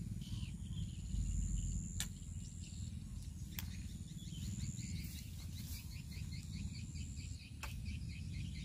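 Open-air ambience: a steady low rumble under an insect's high, even buzz that comes and goes in long stretches. In the second half comes a quick run of short high chirps, and there are a few sharp clicks.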